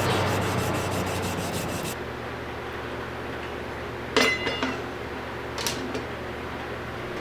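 Abrasive rubbing on the knife, like sanding or filing, which stops about two seconds in, leaving a low steady hum. A little later a piece of metal clinks once with a short ring, then a lighter tick.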